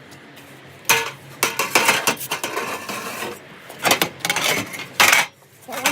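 Metal objects clanking and clattering against each other in several bursts: a sharp one about a second in, a longer rattle after it, then two more near the end.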